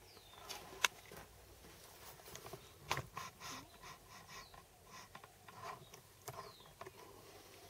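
Faint, scattered clicks and light scrapes, the handling noise of a camera being moved in and zoomed closer.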